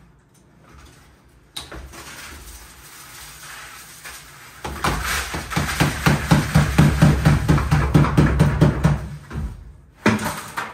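Concrete patch mix being stirred in a plastic bucket. The stirring is quieter at first, then loud for about five seconds with a fast, even churning rhythm over a steady hum, followed by a short knock near the end.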